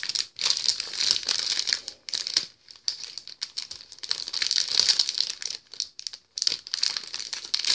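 Crinkly packaging being handled: irregular rustling and crinkling, broken by a few short pauses, the longest about two and a half seconds in.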